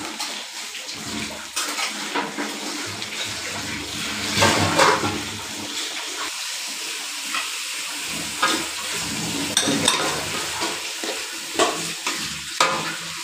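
Chopped tomatoes and onions frying in hot oil in a metal kadai with a steady sizzling hiss. A spatula scrapes and knocks against the pan several times.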